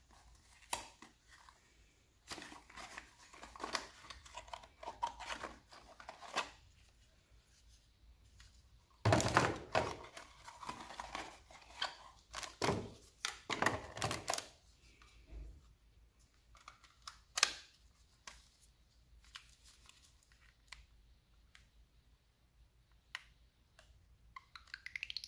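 Cardboard boxes and plastic parts bags being handled: rustling, crinkling and light clicks of plastic pieces, louder in two stretches in the middle. Near the end, a LEGO Spike Prime hub powering on with a short rising electronic tone.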